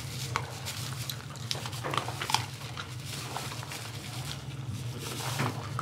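American Bully puppies eating dry kibble from a pan: irregular crunching and clicking of kibble, over a steady low hum.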